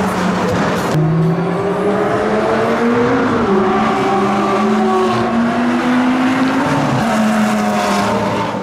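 Supercar engines at full throttle on a racetrack, their pitch climbing steadily, dropping once at an upshift about three seconds in, then climbing again.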